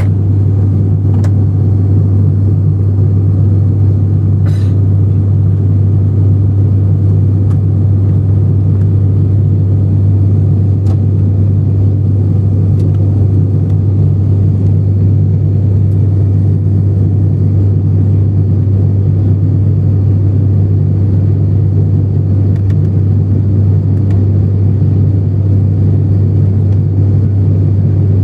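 Turboprop airliner's engine and propeller drone in flight, heard from inside the cabin: a loud, steady, deep hum that does not change.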